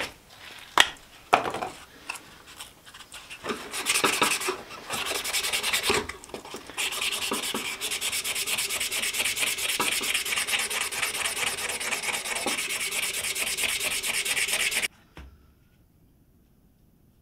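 Hand sanding or filing of a wooden knife handle with a small abrasive stick: uneven rubbing strokes at first, then fast, even back-and-forth strokes that stop abruptly about fifteen seconds in.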